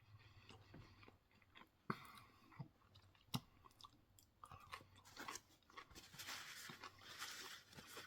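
Faint close-up chewing of crispy fried chicken breading, with a few sharp crunches about two and three and a half seconds in and busier chewing near the end.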